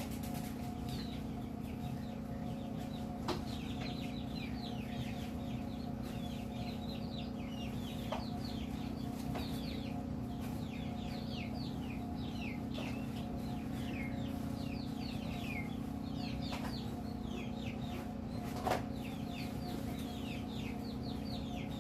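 A chick peeping over and over in quick, high, falling peeps, over a steady low hum, with a few faint knocks.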